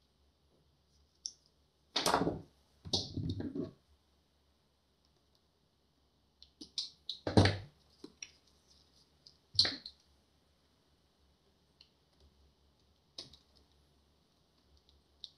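Irregular clicks, knocks and brief rustles of hands handling wires and plastic plug connectors above an e-bike's control board, with quiet gaps between. The loudest knocks come about two, three, seven and a half and nine and a half seconds in.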